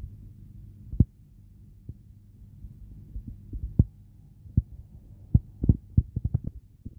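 A low steady hum with dull, irregular thumps about a second apart, coming in a quick run near the end.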